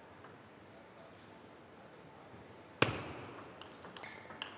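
Table tennis ball and bats in a rally. It is faint at first, then a sharp loud knock comes a little past halfway as the point starts, followed by a quick run of light clicks as the ball is struck and bounces on the table.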